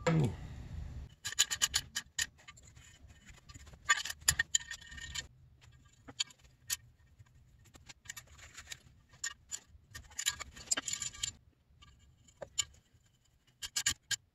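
Hand socket ratchet clicking in several short runs of rapid ticks with pauses between them, as the cylinder studs are turned into the engine crankcase.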